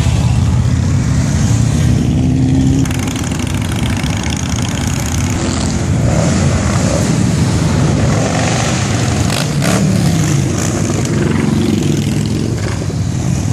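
Street traffic of touring motorcycles and cars passing close by, a steady mix of engine noise with engine pitch rising and falling as machines go by. A couple of short sharp clicks sound a little past halfway.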